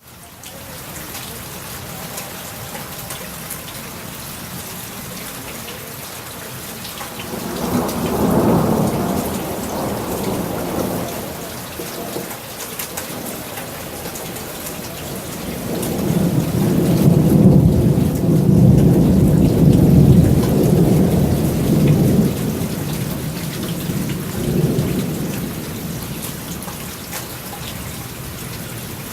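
Steady rain with two rolls of thunder: a shorter rumble about eight seconds in, then a longer, louder one building about sixteen seconds in and dying away a few seconds before the end.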